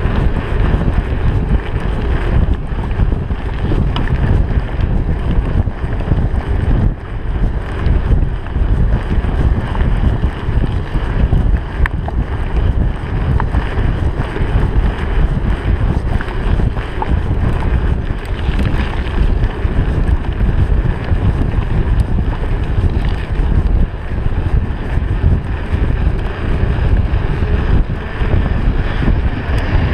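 Loud, steady wind rumble buffeting a GoPro's microphone during a fast mountain-bike descent, over the rolling noise of a Trek 4500's tyres on a dirt and gravel road, with scattered small clicks and rattles.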